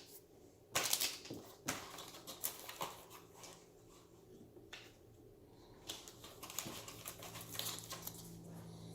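Trading cards being handled and set down on a table: scattered soft taps and slides, with a couple of sharper clicks in the first two seconds, over a faint steady low hum.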